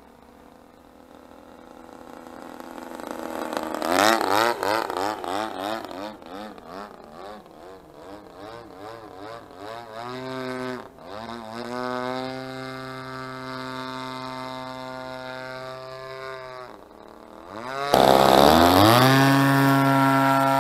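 Single-cylinder two-stroke DLE 20cc engine of an RC Sbach 342 model plane, running on a chainsaw carburettor, as the plane flies passes. The engine grows louder, its pitch swinging up and down as it passes, then holds a steady note with one brief dip. Near the end a much louder, close engine note starts suddenly and rises to a steady full-throttle pitch, with the plane on the ground near the camera.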